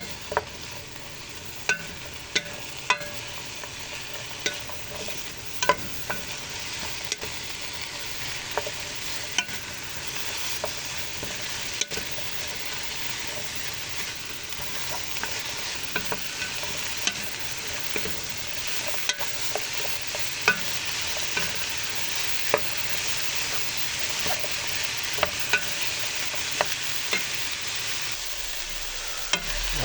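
Onions frying and sizzling in a pan, stirred with a spatula that clicks and knocks against the pan now and then. The sizzle grows gradually louder.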